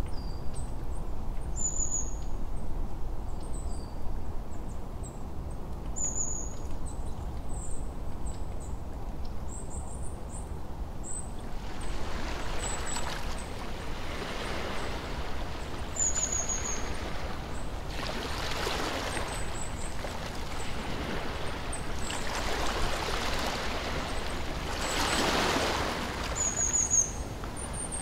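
Nature ambience: small birds chirping in short high calls over a steady low rumble. From about twelve seconds in, gentle lake waves lap in slow swells.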